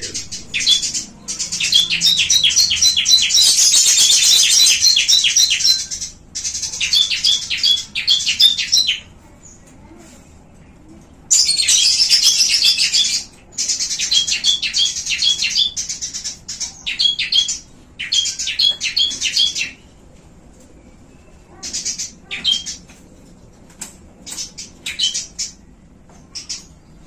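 Caged small songbirds chirping in fast runs of sharp, high repeated notes, several notes a second, in bursts lasting several seconds with short pauses; the calling thins out to brief scattered chirps near the end.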